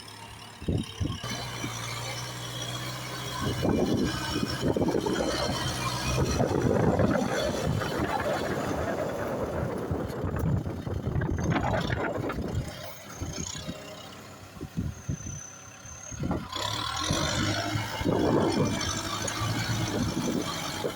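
Kubota tractor's engine running under load while it pushes soil, with irregular clattering and rattling. It goes quieter for a few seconds past the middle, then picks up again.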